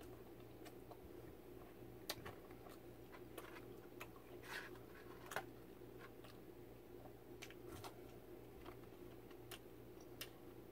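Faint close-up chewing of fast food, scattered soft wet mouth clicks over a steady low room hum.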